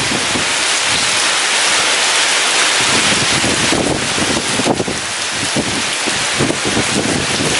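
Heavy rain pouring steadily in a storm, with strong wind gusting. Low rumbling gusts come and go from about three seconds in.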